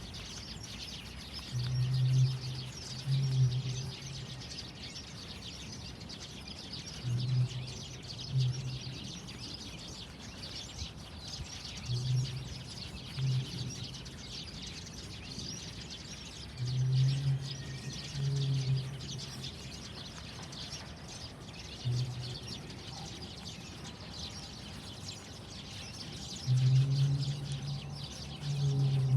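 Outdoor ambience with continuous high chirping, likely birds, under short low hums that come mostly in pairs about a second apart, repeating every five seconds or so.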